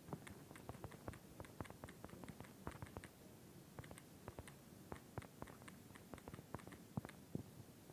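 Faint, irregular clicking of keys being typed, a few strokes a second.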